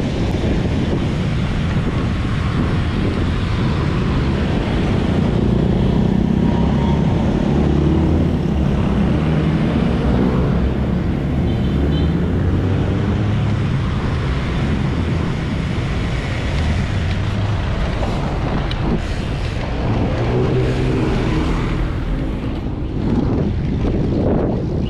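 Street traffic: engines of cars and trucks passing at varying pitch, over steady wind noise on the microphone.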